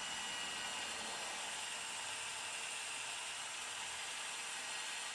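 Steady faint hiss with a thin high whine running under it, even throughout with no knocks or changes.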